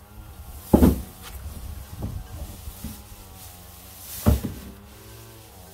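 Long-handled garden tool jabbing dry grass and reed clippings down into a plastic wheeled yard-waste bin: two loud thumps, one about a second in and one a little after four seconds, with a lighter knock in between and the rustle of dry stalks.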